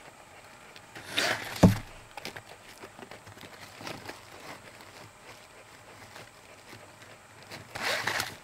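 Handling noises: a brief rustle ending in a sharp knock about a second and a half in, scattered small clicks, and another short rustle near the end.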